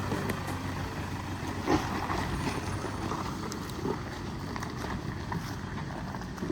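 Off-road vehicle driving over a rough dirt trail: steady engine and tyre rumble with a couple of short knocks.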